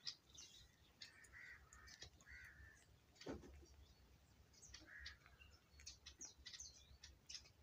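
Near silence: soft, scattered clicks of a kitten chewing and tearing at a dead rat, with a few faint short bird calls.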